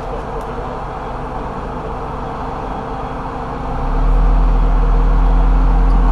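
Off-road 4x4 engine running steadily. It grows much louder and deeper about four seconds in and stays at that level, as the engine takes on throttle or load.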